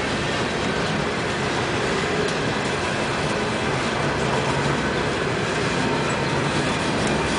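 Freight train of steel coal cars rolling past close by: a steady, loud noise of steel wheels running on the rails.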